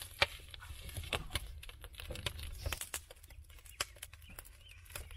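Wood fire crackling inside a clay cob oven, with irregular sharp pops and snaps.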